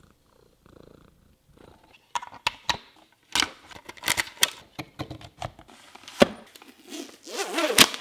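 Hard plastic clicking, tapping and knocking as a robot vacuum's plastic charging dock and power adapter are handled and set down, with a denser crackle near the end. A cat purrs faintly in the first second or so.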